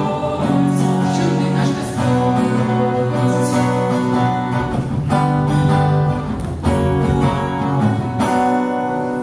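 Acoustic guitar strummed in chords that change every second or two, with a voice singing along.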